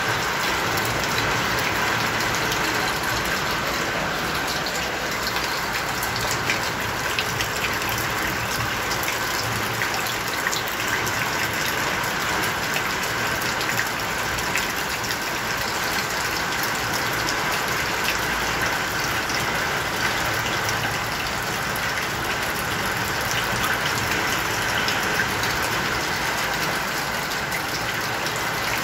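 A steady, even rush of water.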